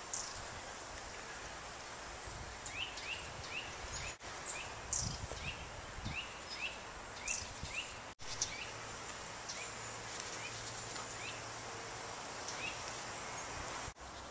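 Small songbirds calling outdoors: many short rising chirps, a few a second, with some high thin notes, over a steady hiss of outdoor ambience. The sound drops out briefly twice.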